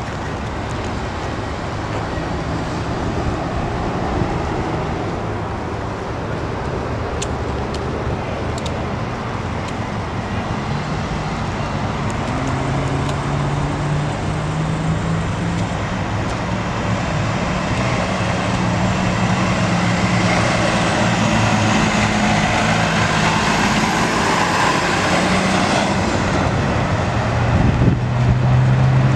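Steady road-traffic noise, with a fire department brush truck's diesel engine coming closer from about ten seconds in and growing louder as the truck passes close by near the end.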